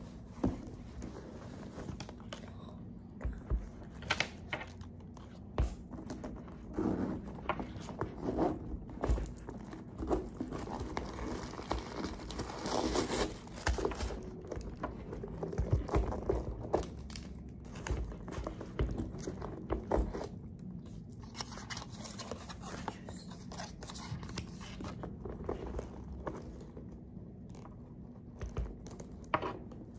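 Rustling and crinkling of a cloth dust bag and crumpled wrapping, with scattered clicks and taps, as a leather handbag is unpacked and handled on a desk; busiest around the middle.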